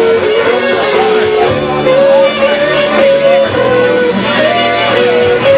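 Live rock band playing loud: a saxophone carries a melody of held notes over distorted electric guitar.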